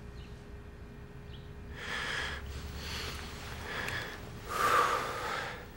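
A person sniffling and breathing heavily, four or five breaths starting about two seconds in, the loudest near the end.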